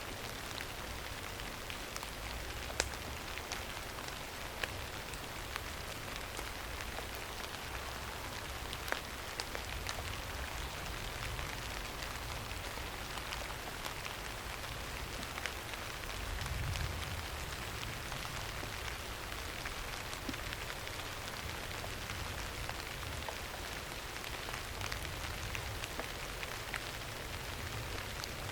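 Steady rain falling, an even hiss with scattered sharp drop taps, and a low rumble that swells briefly about two-thirds of the way through.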